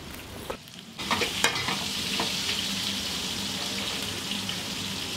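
Food frying in pans on a gas range: a steady sizzling hiss that comes up about a second in, with a few light clicks from the pans.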